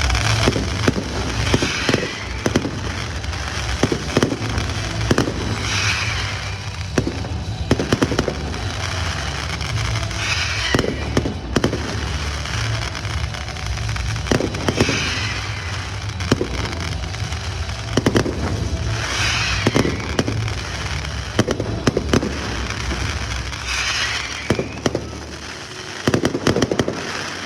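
Fireworks display: shells bursting in sharp bangs about every second, with crackling shells fizzing every few seconds.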